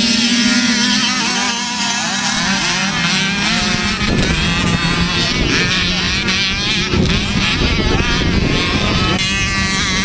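Several small youth motocross bikes racing, their engines buzzing and revving up and down in pitch as the riders work through the track.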